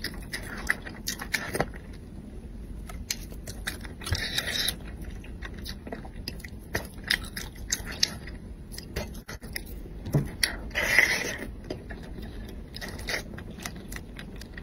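Close-miked eating sounds: chewing and sucking at pieces of spicy braised fish, with many small wet clicks and smacks of the mouth. Two longer, hissier sounds come about four and eleven seconds in.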